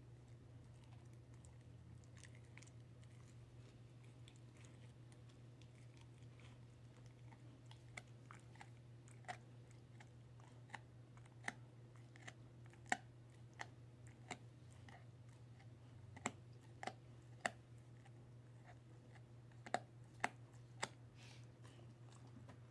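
A dog chewing a Purina Busy Chewnola treat. Irregular sharp crunches and clicks of teeth on the hard chew come mostly after the first third, over a steady low hum.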